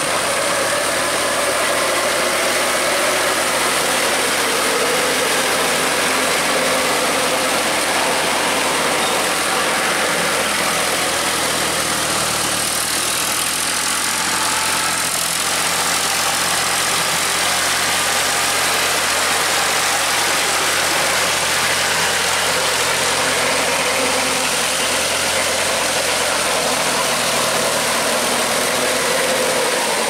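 Eicher 5660 tractor's three-cylinder diesel engine running steadily under load as it pulls a rotary tiller through wet paddy mud.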